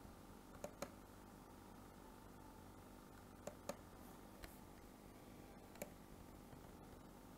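Near silence with a faint steady hum, broken by about six sharp computer mouse clicks: two quick pairs, one near the start and one in the middle, then two single clicks.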